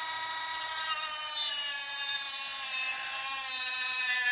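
A 3-inch cutoff wheel cutting through metal on a car's front steering knuckle. It gives a high whine, and a grinding hiss joins in about a second in as the wheel bites. The pitch sags slowly under the load of the cut.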